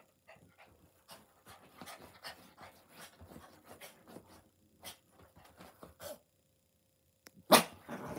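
Chihuahua romping wildly on a bed: a run of many short, quick breathing sounds from the dog mixed with the rustle of the quilted comforter, then one loud sharp burst about seven and a half seconds in.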